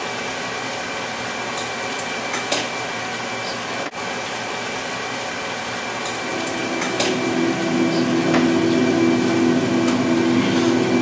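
A steady mechanical hum with a few faint clicks; a lower, stronger hum joins about six seconds in.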